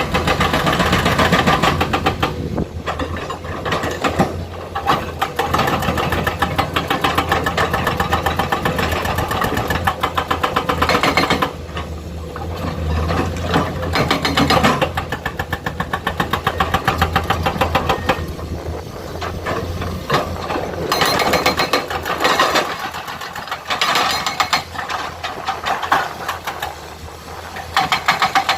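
Komatsu hydraulic excavator's diesel engine running with a rapid, even pulse, its loudness swelling and easing repeatedly as the load changes.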